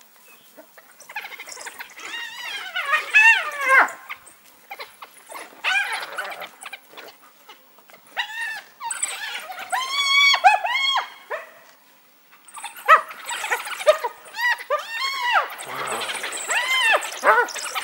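African wild dogs and a spotted hyena squabbling over a kill: bursts of high-pitched twittering and squealing calls that rise and fall in quick series, with short pauses between the bursts.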